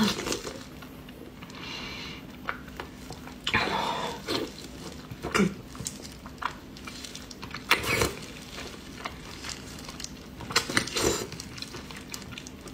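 Close-up eating sounds: wet chewing and sucking on pieces of glossy braised pork, in irregular short bursts, the loudest about 8 seconds in and again around 11 seconds.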